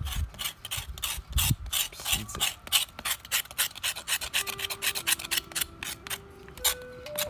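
A knife blade scraping the scorched skin of a slab of cured pork (larou) in a basin of water, quick rasping strokes about five or six a second, cleaning off the char left from burning the skin.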